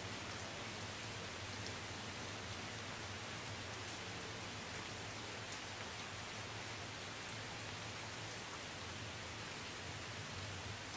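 Steady rain falling, an even hiss with a few sharper drop ticks here and there.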